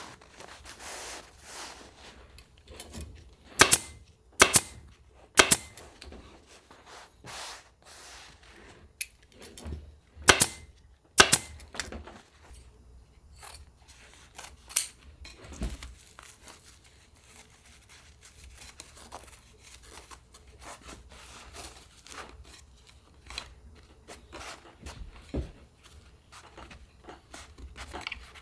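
Upholstery staple gun firing staples into a wooden chair frame: about five sharp, loud shots in two clusters, with quieter clicks and rustling of fabric being handled between them.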